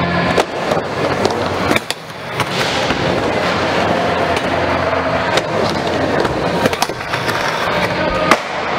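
Skateboard wheels rolling over plywood ramps, with several sharp clacks of the board striking the wood.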